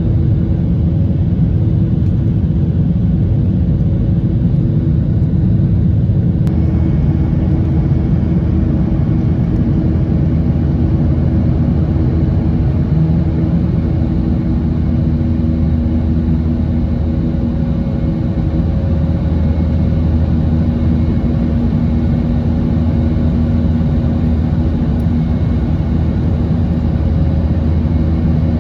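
Boeing 737-900ER cabin noise heard from a main-cabin seat: the CFM56 turbofan engines and airframe make a loud, steady low rumble with a few held engine tones. A little over six seconds in, a higher hiss rises slightly.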